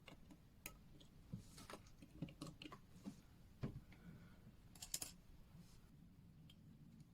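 Faint, scattered small clicks and taps of metal tools and small watch parts being handled, about a dozen light ticks spread unevenly, the loudest a few around five seconds in.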